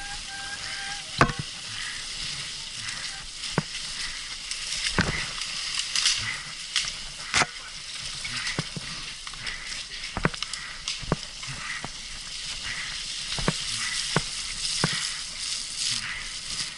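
Mountain bike ridden over a rough forest trail: a steady hiss of tyres and air, broken by scattered sharp knocks and rattles from bumps. A brief high tone sounds in the first second.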